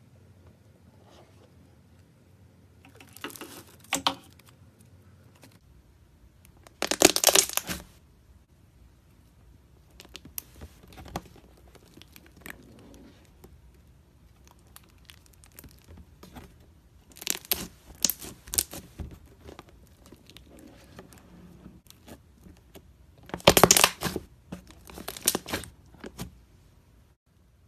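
Slime being squeezed and pulled by hand, giving several short bursts of dense crackling and popping, loudest about seven seconds in and again near the end.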